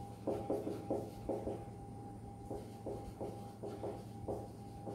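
Marker pen writing on a whiteboard: a run of short squeaky strokes, close together for the first couple of seconds, then more spaced out, over a steady low hum.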